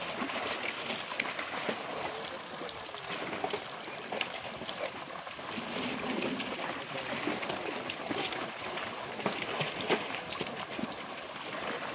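Rohu fish thrashing and leaping in a long net pulled tight in the water, making continuous irregular splashing with many sharp slaps on the surface.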